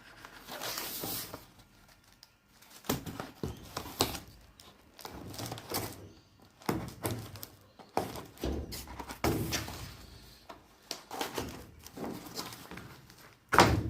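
A parcel being opened and its packaging handled: irregular rustling and scraping with scattered knocks and thunks.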